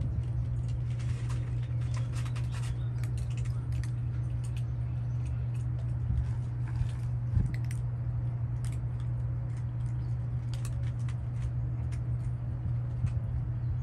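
Cats crunching dry kibble from bowls: many small, irregular crunches and clicks, over a steady low hum.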